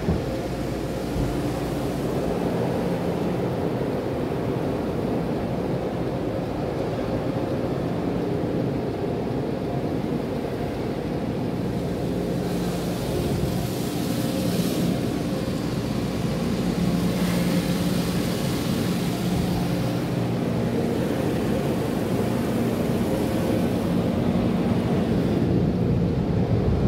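Belanger automatic car wash tunnel equipment heard from inside the car's cabin. It makes a steady mechanical hum with a few held low tones, along with water and spray hitting the car. Louder hissing comes in two spells around the middle.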